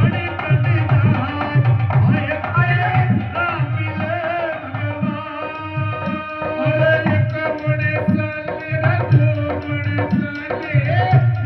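Loud Indian dance music played over a DJ sound system: a steady, repeating low drum beat under a wavering melody.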